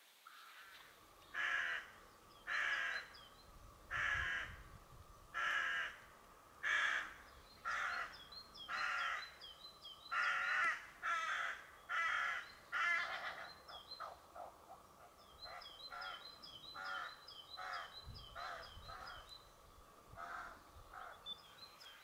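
A crow cawing over and over, about one caw every second or so, weaker after about thirteen seconds. A small bird's quick high chirps run alongside in two stretches.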